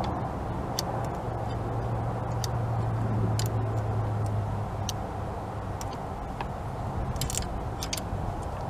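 Scattered sharp metallic clicks from a long socket extension and 10 mm deep socket working an EGR valve bolt on a Chevy Tahoe engine, over a steady low hum.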